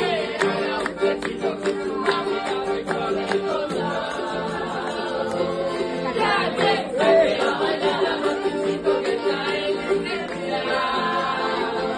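A group singing along to a piano accordion and strummed acoustic guitars: a lively song, with the accordion holding steady chords under the voices.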